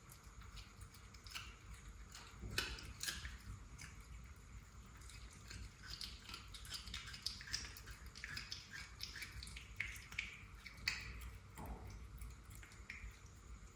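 A cat chewing and crunching on a lizard it has caught: irregular wet clicks and crunches in quick succession, with a few sharper bites.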